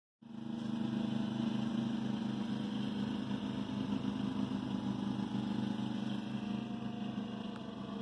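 An engine running steadily, a low hum that pulses evenly several times a second.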